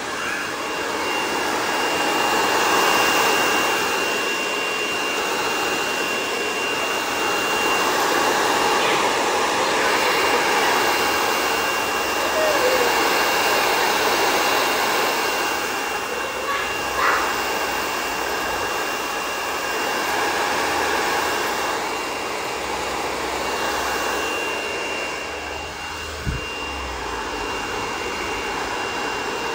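Handheld hair dryer blowing: a continuous rush of air with a thin, steady high whine over it, swelling and easing a little as it is moved around the head.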